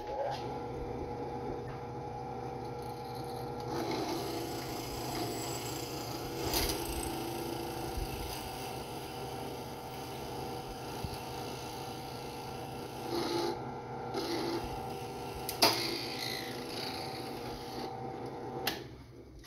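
Benchtop drill press running steadily while its bit grinds down through an iPhone 5s home button and the phone body. There are a few sharp snaps, the loudest about two-thirds of the way in, and the motor winds down near the end.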